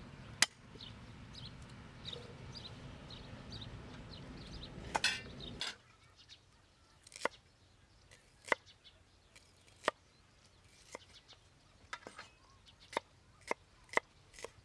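A cleaver chopping shallots and garlic on a wooden chopping board: single sharp knocks about once a second, coming closer together toward the end. Before them, steady low background noise with faint short chirps cuts off abruptly about six seconds in.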